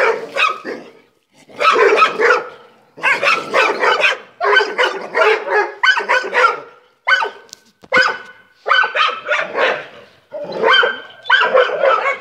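Several dogs barking in rapid, overlapping volleys, with short breaks between the bursts.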